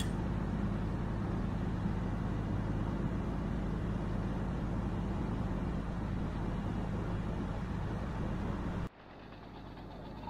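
An engine running steadily at a constant pitch. It cuts off suddenly about nine seconds in.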